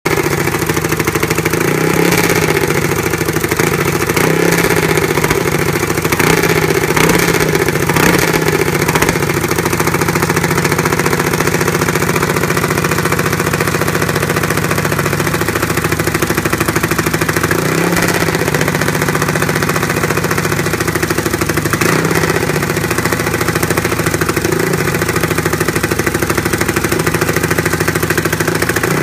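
Junior dragster's single-cylinder engine running at idle, its speed rising briefly every couple of seconds in the first several seconds as the throttle is blipped, then holding steadier with a few more small blips.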